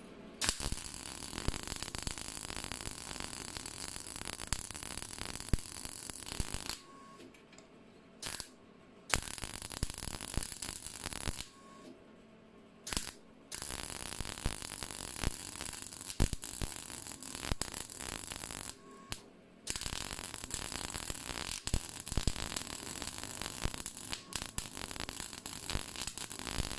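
MIG welder arc crackling as a continuous seam is run on thin sheet steel. The weld goes in runs of several seconds, broken by a few short pauses where the arc stops. The sheet takes too much heat from this kind of seam welding.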